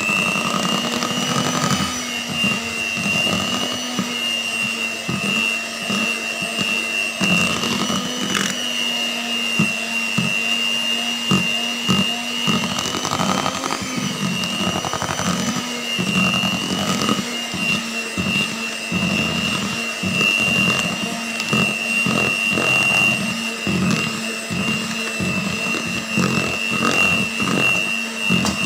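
Miyako electric hand mixer running steadily, its beaters whisking cake batter in a metal bowl, with a high motor whine and many short knocks.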